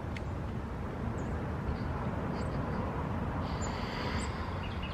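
Steady low outdoor rumble, like distant traffic or an aircraft, with a few faint, short bird chirps over it.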